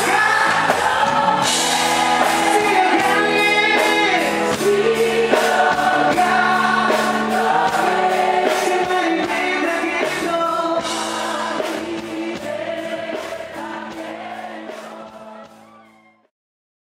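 Live band music with singing, fading out over the last few seconds.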